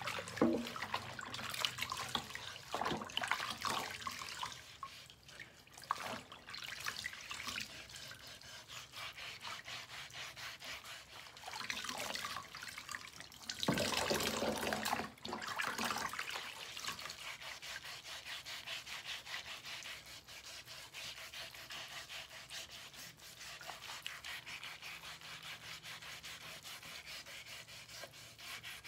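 Hand dishwashing in a stainless steel sink: scattered splashes and knocks, then water pouring over a wooden cutting board about halfway through, followed by a sponge scrubbing the board in quick, even strokes.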